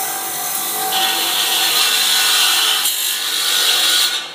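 Electric chicken cutting machine's circular saw blade cutting through a whole chicken carcass: a loud, harsh rasping that grows harsher about a second in and stops abruptly near the end as the cut finishes.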